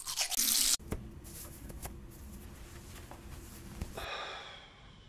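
Toothbrush scrubbing teeth in a short, loud burst, then a quiet bathroom with a few small clicks and a brief hissing rush about four seconds in.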